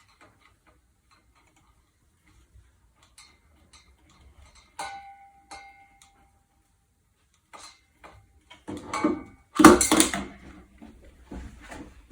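Hands working on ceiling-fan wiring and hardware: faint clicks, a small metal part clinking with a short ring about five seconds in, then a burst of louder clattering and rustling a little before ten seconds in.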